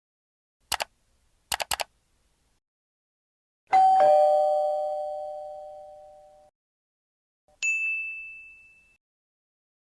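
A few short clicks, then a doorbell chime's two-note ding-dong, high note then lower note, ringing out slowly. Near the end comes a single high ding that fades quickly.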